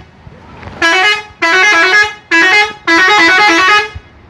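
Telolet bus horn playing its melody: four loud blasts in quick succession, each a few stepping multi-tone notes, the last one the longest.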